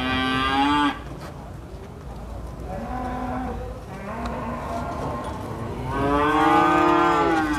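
Cattle mooing. A loud call ends about a second in, two shorter, softer calls come around three and four seconds in, and a long loud call starts about six seconds in, its pitch rising slightly and then falling.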